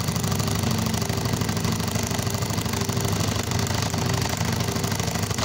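Motor-driven embroidery sewing machine running steadily at speed, its needle stitching in a rapid, even rhythm over the motor's hum.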